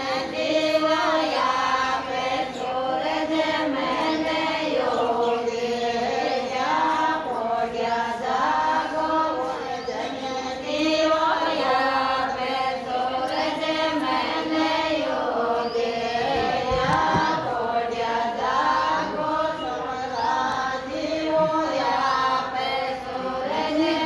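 A group of women singing together in unison: a repetitive, chant-like melody that runs on without pause.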